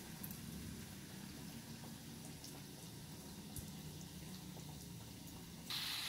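Faint handling sounds with a few light clicks and a low steady hum, as a hand presses a batter-coated potato ball into dry vermicelli in a steel bowl. Near the end, hot oil suddenly starts sizzling as the vermicelli-coated ball deep-fries.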